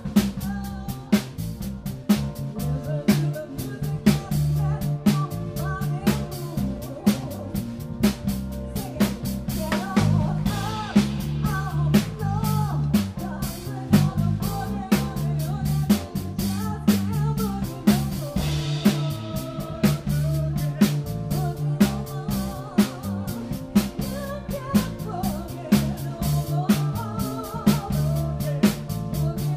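Live band playing a funky groove: a drum kit with Paiste cymbals keeping a steady beat, a bass line, piano, and a woman singing at times.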